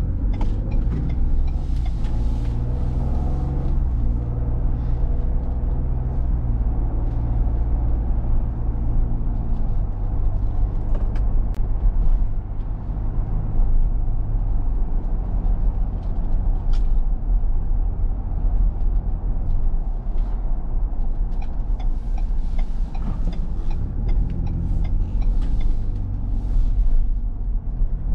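Ford Bronco's 2.7-litre EcoBoost twin-turbo V6 heard from inside the cabin while driving. The engine note shifts up and down in steps several times in the first ten seconds and again in the last few seconds, with steady tyre and road noise underneath.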